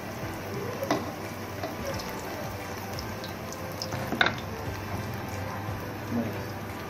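Pakoras deep-frying in hot oil in an aluminium karahi, a steady sizzle. Two sharp clicks stand out, about a second in and again about four seconds in.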